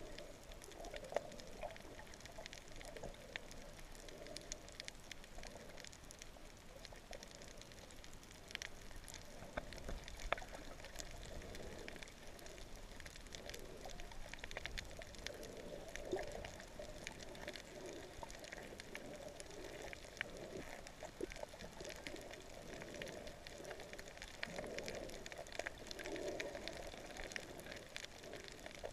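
Humpback whale song heard underwater: long, wavering moans rising and falling in pitch, coming and going, over a constant faint crackle of clicks.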